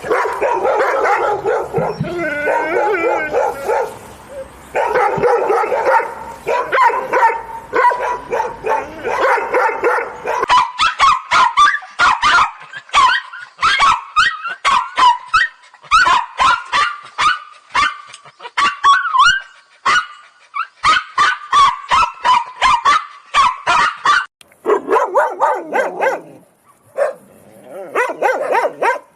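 Dogs barking angrily in a string of spliced sound-effect clips: first a dense, continuous stretch of barking, then a long run of rapid, higher-pitched barks at about three a second, then slower, lower barks near the end.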